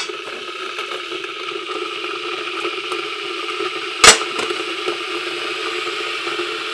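Electric kettle heating, a steady hissing noise, with one sharp knock about four seconds in.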